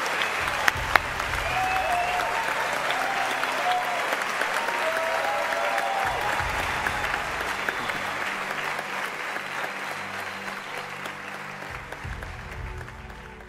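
Audience applauding steadily, slowly fading toward the end, with two sharp knocks about a second in. Music plays underneath the applause.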